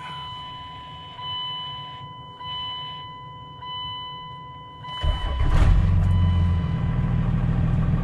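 A faint steady high whine with the key on, then about five seconds in a 2nd-gen Cummins 24-valve 5.9-litre inline-six diesel cranks briefly and fires, settling into a steady idle. It is a cold start that catches right away with no hard start, a sign the fuel prime held overnight.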